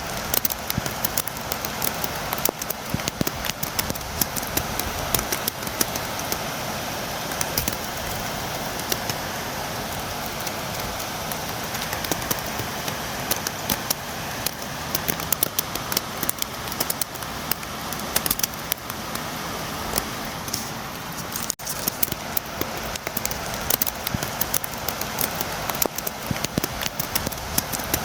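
Steady rain, with many sharp drops tapping on a window. There is a split-second break in the sound about three-quarters of the way through.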